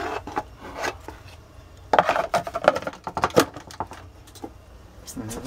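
A hard white plastic cover knocking and rattling as it is fitted by hand over a marine fish finder display: a cluster of quick clicks and knocks about two seconds in.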